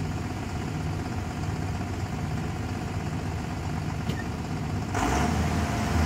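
John Deere 7405 tractor's diesel engine idling steadily, growing louder about five seconds in.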